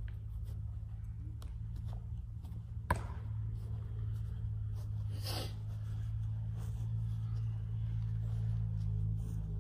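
Steady low hum of indoor room tone, with a single sharp click about three seconds in and a brief hiss a little after five seconds.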